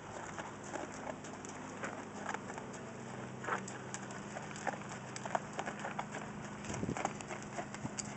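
Hoofbeats of a saddled horse moving loose on sandy footing: soft, irregular thuds and scuffs. A faint steady low hum runs underneath from about three seconds in.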